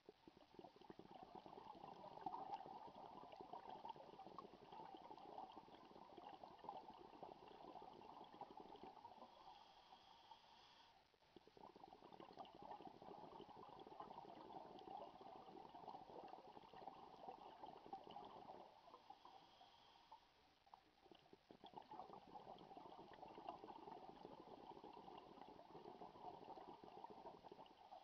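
A scuba diver breathing through a regulator, heard faintly underwater. Three long stretches of exhaled bubbles gurgle, each lasting several seconds. They are separated by short, hissing inhalations about nine and nineteen seconds in.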